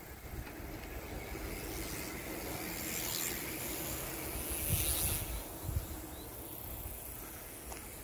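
Wind rustling the leaves of tall Korean silver grass, swelling to a louder rush for a couple of seconds in the middle, with a low wind rumble and two soft thumps near the middle.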